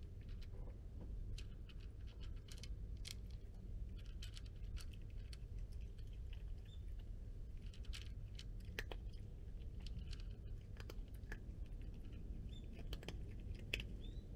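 Tabby cat eating dry kibble: irregular, small crunching clicks as it chews.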